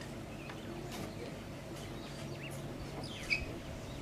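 Wild birds chirping and calling in short, quick whistles over a steady low hum, with one sharp click about three seconds in.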